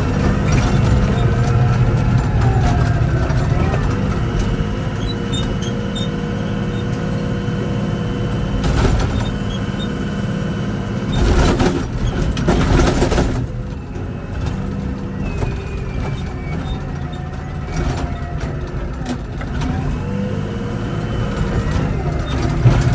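Komatsu WA100 wheel loader's 4.9-litre diesel engine running, its pitch rising and falling as it revs. A louder rush of noise lasts about two seconds a little past halfway.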